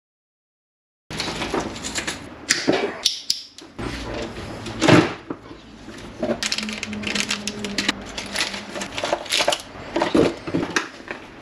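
Hands rummaging through a plastic parts organiser of electrical connectors and crimp terminals, starting about a second in: small terminals clicking and rattling against the plastic compartments while plastic bags rustle.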